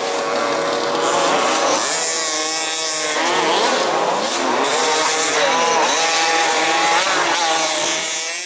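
Several 1/5-scale RC off-road race cars' small two-stroke petrol engines running together, each revving up and easing off in overlapping rising and falling pitches as the cars race around the track.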